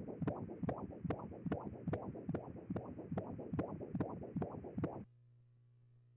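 Fetal heartbeat played through the ultrasound machine's Doppler speaker: a fast, rhythmic whooshing pulse that cuts off suddenly about five seconds in.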